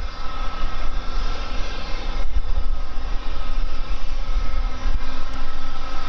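Gulfstream G550 business jet's twin Rolls-Royce BR710 turbofans running steadily: a continuous jet noise with a steady high whine over a low, fluttering rumble.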